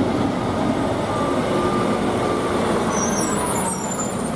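MAN concrete mixer truck driving past, its diesel engine running steadily.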